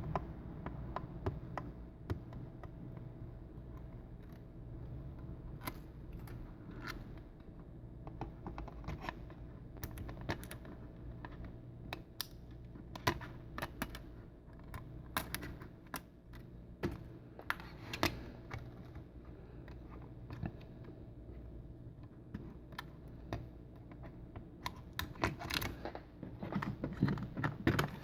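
Light, irregular clicks and taps of hands handling an iPad mini 3 and its replacement digitizer during a repair, growing busier near the end, over a faint steady low hum.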